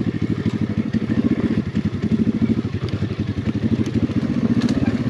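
Apollo RFZ 125cc single-cylinder four-stroke dirt bike engine running at low revs in a fast, even putter while the bike picks its way down a steep rocky trail, with a few light clicks and knocks over the stones.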